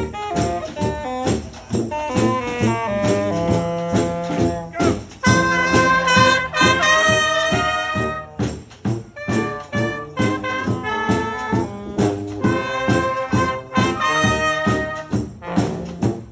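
Honk street band playing live: brass and saxophones in held and moving lines over a steady percussion beat.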